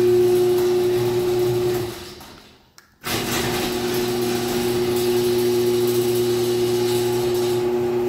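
Chamberlain garage door opener motor running with a steady hum and whine. It winds down and stops about two seconds in, then starts again abruptly a second later and runs on steadily as the door travels back down.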